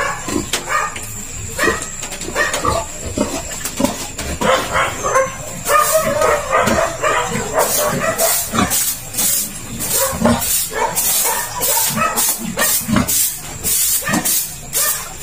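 Piglets squealing in short, repeated cries, turning into harsher, hissier shrieks about halfway through.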